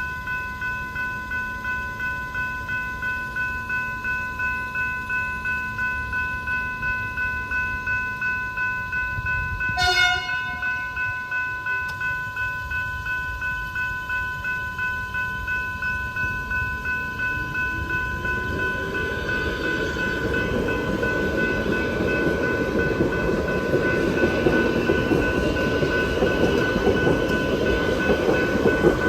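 Level crossing bell ringing in a steady rhythm of about two strokes a second while the crossing is activated. A short train horn blast sounds about ten seconds in, and from about 18 seconds a train's rumble builds louder as it approaches and runs through the crossing.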